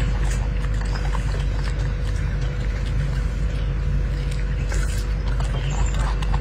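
Golden snub-nosed monkey chewing a piece of fruit: faint scattered clicks over a steady low rumble.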